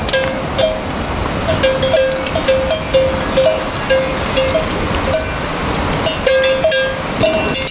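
Metal bells on livestock clanking irregularly as the animals move, roughly two strikes a second, over a steady rushing hiss.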